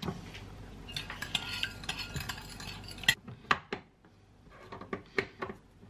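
Metal spoon stirring and scraping against a glass bowl, dissolving sugar into a syrup, for about three seconds. Then a handful of separate sharp metallic clicks.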